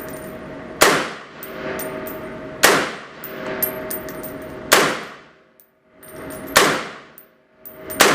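SCAR-17 rifle (7.62×51mm NATO) fired in slow, single aimed shots, about one every two seconds, five in all, each a sharp crack with a reverberant tail, followed by light metallic clinks.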